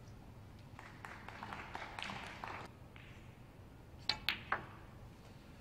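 A snooker shot: three sharp clicks in quick succession, the cue tip striking the cue ball and then the phenolic resin balls knocking together. Before the clicks there is a couple of seconds of soft, indistinct noise.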